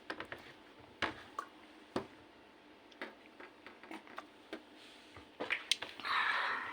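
Light clicks and taps, about one a second, as a drink bottle is handled, with a few quick clicks about five and a half seconds in and a short rushing noise near the end.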